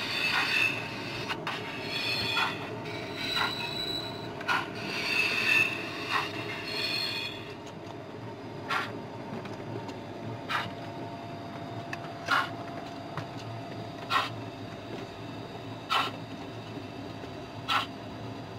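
O gauge model coal wagons and a small saddle-tank locomotive running along the track, their metal wheels making a steady rumble. For the first seven seconds or so the wheels squeal in high tones among scattered clicks. After that the squeal stops and a single sharp click comes about every two seconds.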